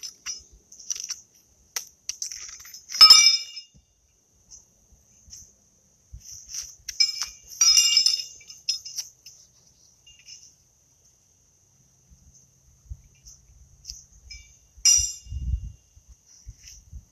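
Steel pitching horseshoes clanking against each other in a few sharp, ringing clinks, the loudest about three seconds in, then around eight seconds and again near the end. Crickets chirp steadily throughout.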